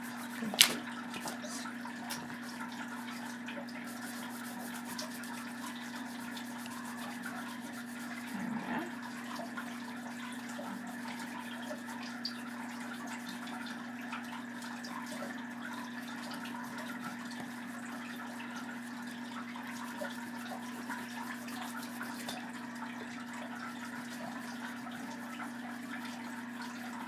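Side of an oil pastel rubbed back and forth across paper to fill a large area: soft, continuous scratching over a steady low hum, with one sharp click about half a second in.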